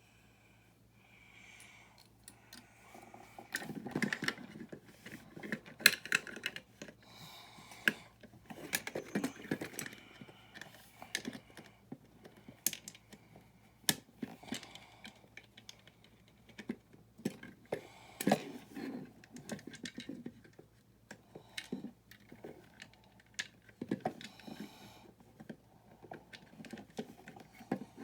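Irregular sharp clicks, taps and rattles of small plastic building-brick parts being handled as a long string is wound back onto a toy fire truck's ladder reel. The clicks start about three seconds in and continue unevenly.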